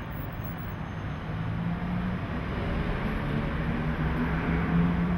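Street traffic: cars driving past close by, engine hum and tyre noise growing louder from about a second in.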